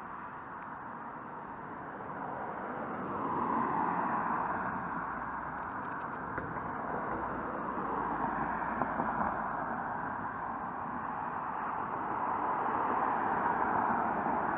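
Road traffic: cars driving past one after another, their tyre and engine noise swelling and fading three times.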